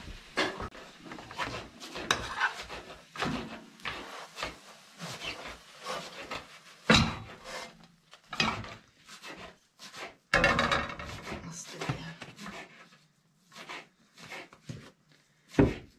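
A non-stick frying pan being handled on a gas stove: scraping and knocking as a cooked gaygana pancake is turned out of the pan and the pan is moved on the grate. There are many short knocks, the loudest about seven seconds in, again just after ten seconds, and once near the end.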